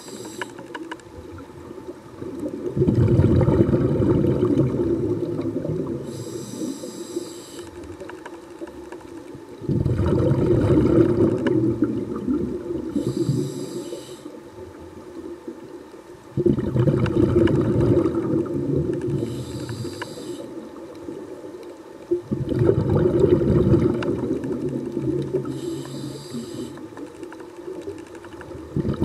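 Scuba diver breathing through a regulator underwater: a short hiss on each inhale, then a loud rumbling rush of exhaled bubbles that fades over a few seconds. The cycle repeats about every six and a half seconds, four times.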